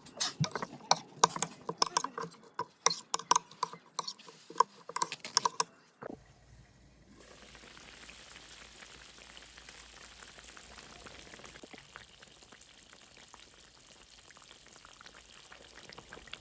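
A metal utensil clattering and scraping in a cooking pan for several seconds. Then, after a short pause, a steady sizzling with fine crackles, like food frying in oil.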